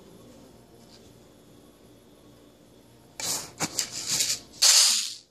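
Handling noise from the recording phone: a few seconds of quiet room, then scraping and rubbing with a few knocks, ending in a short, loud rush of noise.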